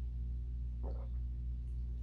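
A steady low electrical hum, with one brief mouth sound about a second in.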